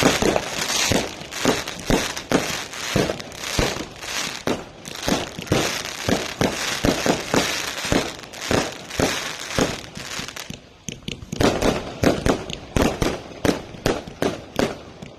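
Fireworks going off in rapid succession: a dense run of bangs over crackling, with a brief lull about ten and a half seconds in before the bangs resume.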